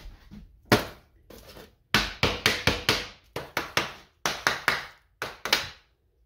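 Sharp taps and knocks in quick runs of three to six: a bath bomb mold being tapped and worked to release the pressed bath bomb.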